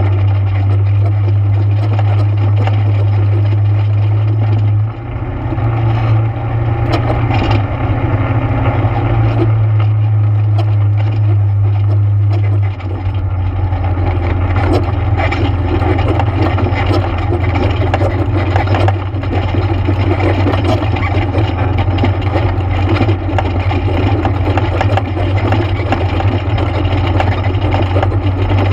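ATV engine running steadily while riding, with the engine note briefly dropping and changing about five seconds in and again near thirteen seconds.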